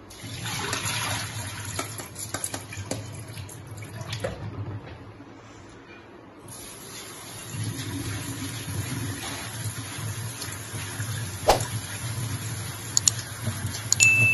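Tap water running and splashing into a steel colander of soaked rice and urad dal in a stainless steel sink, with hands rubbing and swishing the grains as they are washed. The water eases off for a second or two about halfway through, then runs again.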